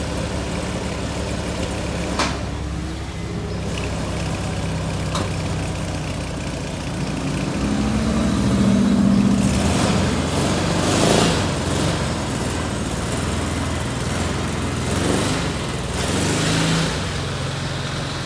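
1972 VW Super Beetle's air-cooled flat-four engine running at idle, its note swelling louder for a few seconds about halfway through.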